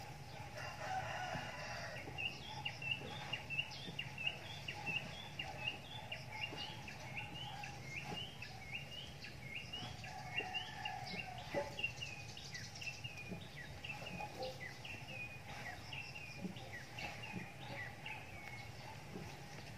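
A bird calling in a long, even run of short, sharp chirps, about two a second, over a faint steady background hum.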